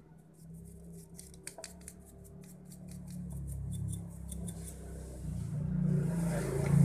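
A small brush scrubbing dust and grime off an opened hand mixer's motor and gear housing, in a quick run of short scratchy strokes. A low hum grows louder under it toward the end.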